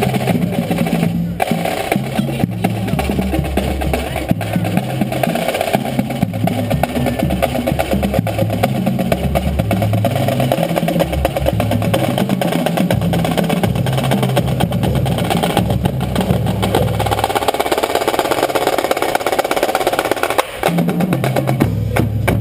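Marching band playing a tune: a drumline with snare and bass drums under brass, with a bass line stepping from note to note. The music breaks off briefly a little before the end.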